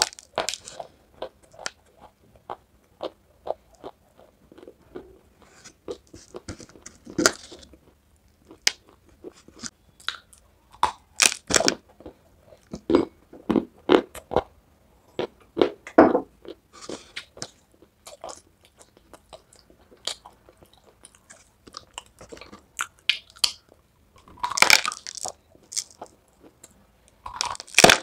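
Close-up biting and chewing of dry white edible chalk (khadi): a scatter of sharp, brittle crunches and clicks, with denser runs of crunching near the end.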